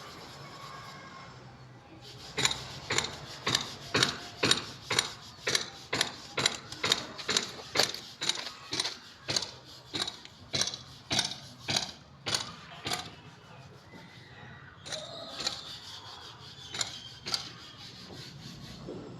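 Repeated rasping strokes of a hand tool on a hard material, about two a second for some ten seconds, then slower, fainter scraping.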